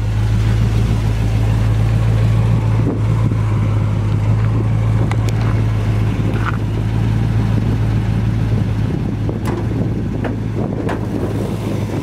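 400 cubic inch Chevy small-block V8 idling steadily, a constant low hum, with a few faint ticks over it.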